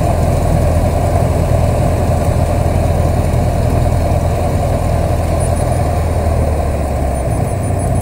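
Cessna 150's four-cylinder Continental O-200 engine and propeller idling, heard from inside the cockpit as a steady drone that eases slightly about seven seconds in.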